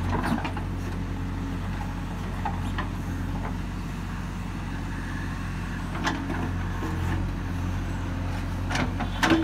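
JCB 3DX backhoe loader's diesel engine running steadily under load while the backhoe digs, with a few short clanks and knocks from the bucket and arm, one about six seconds in and a cluster near the end.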